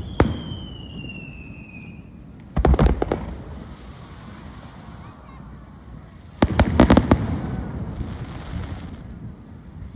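Aerial fireworks bursting: a bang at the start, then two rapid clusters of sharp bangs about three and seven seconds in, each followed by a fading rumble. A whistling tone slides slowly downward over the first two seconds.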